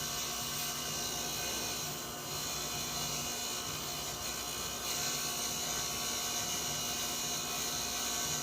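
Wire wheel running steadily, scrubbing corrosion off a sprayer pump part held against it.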